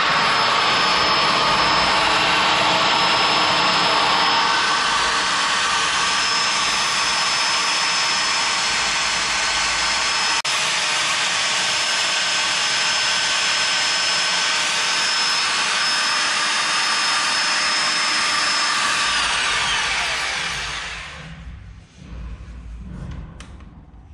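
Corded electric drill with a hole saw running continuously, grinding a circular hole through a floor tile with a steady whine. The drill winds down and stops about three seconds before the end, once the hole is through.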